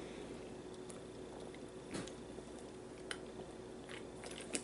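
A person drinking a fizzy drink from an aluminium can: a few soft gulps and swallows, faint over a low steady hum.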